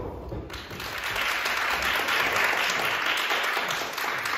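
Audience applauding, the clapping starting about half a second in.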